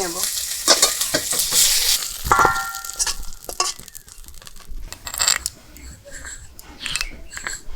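Fried pointed gourds (potol) sizzling in hot oil in a kadai as they are lifted out. The sizzle dies away after about two seconds, followed by scattered clatters of metal cookware and one ringing clink of metal on metal.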